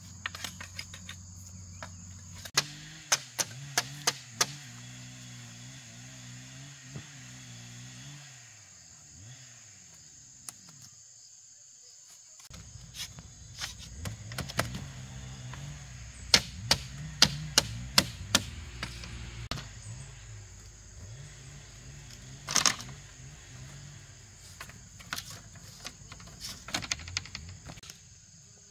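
Sharp knocks and taps of a machete striking bamboo and of split bamboo slats clattering together as they are laid out, coming in short clusters. A steady high-pitched insect drone runs underneath.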